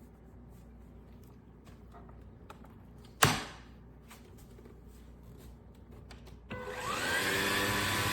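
Small handling clicks and one sharp knock about three seconds in, then a vacuum cleaner's motor switches on near the end and spins up with a rising whine that settles into a steady run.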